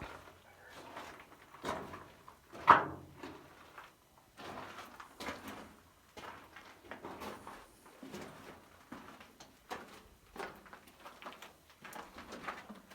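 Irregular scuffing and scraping of footsteps on loose rock and grit, with one sharper, louder scrape or knock about three seconds in.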